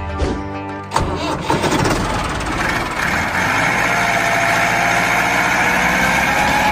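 Background music gives way about a second in to a vehicle engine starting up with a sharp jolt, then running steadily and growing slightly louder.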